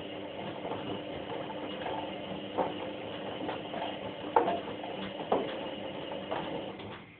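White-Line VW1447A4 washing machine in its prewash, the drum turning with a steady motor hum and a few sharp knocks and clacks. The drum stops near the end.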